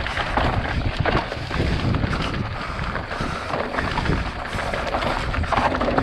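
Mountain bike rolling fast down a rocky dirt singletrack: tyres crunching over dirt and loose stones, and the bike clattering with frequent sharp knocks, over a steady rumble of wind on the microphone.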